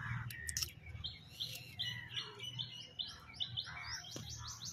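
Small birds chirping: a run of short, repeated high notes, about four a second, quickening near the end.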